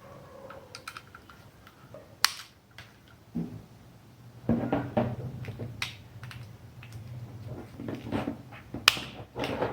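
Scattered clicks and taps of a cable being fitted and fastened to a relay terminal, with a sharper click about two seconds in and another near the end.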